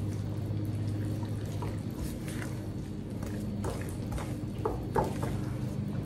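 A spoon stirring thick banana muffin batter in a glass mixing bowl, with a cluster of soft scrapes and clicks against the bowl about four to five seconds in, over a steady low hum.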